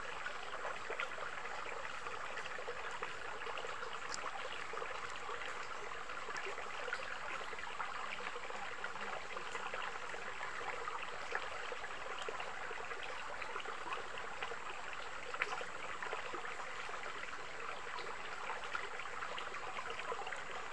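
A stream running steadily, a continuous trickling rush of flowing water.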